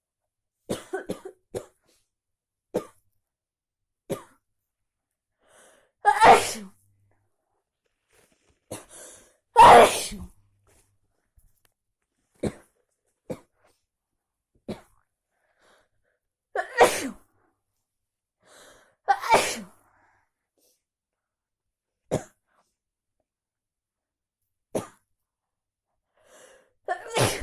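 A sneezing fit after time in a swimming pool: about a dozen sneezes a second or a few seconds apart, some full and loud, others short and sharp, with silence between.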